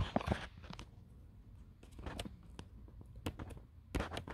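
Faint, scattered clicks and light taps of handling noise, a few irregular ones over a low background hum.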